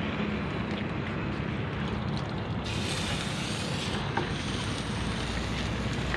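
Steady rushing noise, with a short hiss about three seconds in as hot, freshly soldered metal held in pliers is dipped into a bucket of water and steams.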